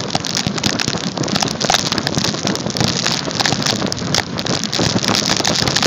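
Dog sled runners hissing and crunching over snow as the sled runs at speed, a dense crackly rush with wind buffeting the microphone.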